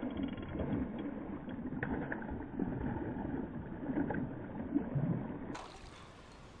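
Irregular knocks and thuds against a canoe hull, with a quick run of ticks at the start, then quieter after about five and a half seconds.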